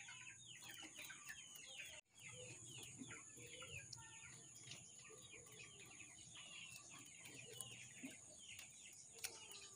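Faint chickens: a dense stream of short, high, falling peeps with a few low clucks, and a thin steady high whine underneath. The sound cuts out briefly about two seconds in.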